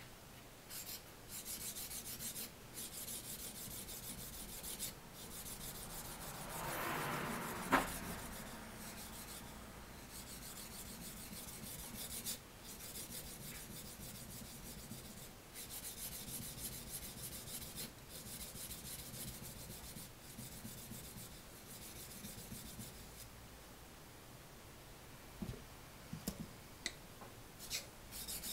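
Small Japanese carving knife (namazori kogatana) being sharpened on a wet natural waterstone: quick back-and-forth strokes of steel scraping on stone, in runs broken by short pauses. A sharp click comes about eight seconds in, and a few light knocks near the end.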